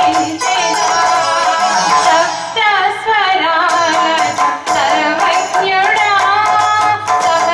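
A woman singing a song into a microphone over instrumental accompaniment with a steady percussion beat.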